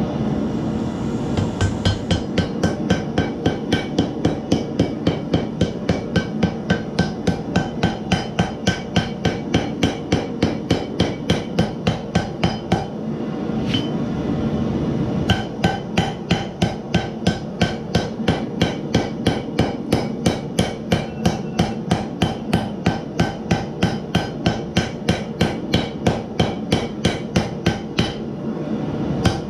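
Hand hammer striking a glowing 28-layer Damascus steel billet on an anvil at about three blows a second, drawing out the forge-welded stack. The blows pause for a couple of seconds about halfway through and briefly again near the end.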